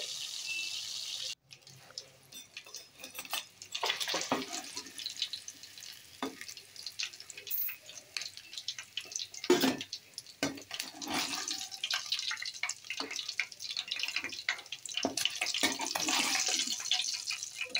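Katla fish pieces frying in hot oil in a kadai: the oil sizzles steadily, breaks off about a second and a half in, then crackles irregularly. A metal spatula knocks and scrapes against the pan as the fried pieces are lifted out.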